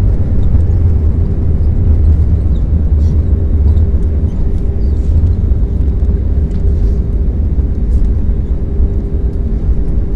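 Loud low rumble heard inside the cabin of an Airbus A321 rolling down the runway just after touchdown: the wheels on the runway and the running engines, with a steady hum that comes through more clearly partway through.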